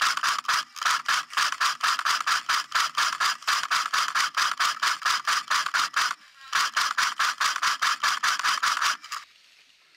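Airsoft electric rifle firing on full auto: a long burst of rapid shots, a short break about six seconds in, then a second burst that stops about nine seconds in.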